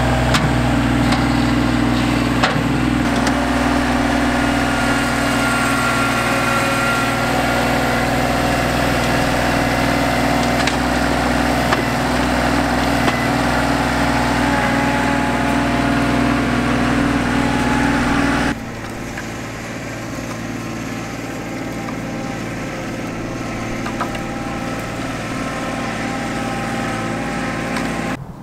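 Compact tractor's three-cylinder diesel engine running steadily under the loader work of backfilling dirt. About two-thirds of the way in it drops suddenly to a quieter, still steady running.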